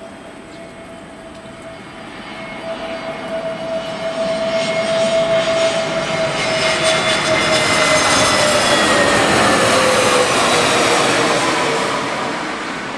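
Airbus A320-251N on final approach with gear down, its CFM LEAP-1A turbofans growing louder as it comes in low overhead. Their whine holds steady, then falls in pitch as the jet passes, and the sound eases off near the end.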